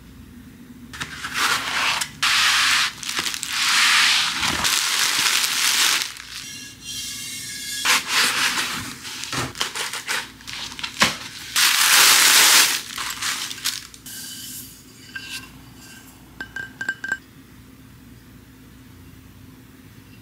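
Plastic wrapping and cardboard packaging rustling and crinkling in loud bursts as home decor pieces are unpacked by hand. Later comes a quick run of light clinks with a faint ring as the ceramic and glass vases and marble tray are handled and set down.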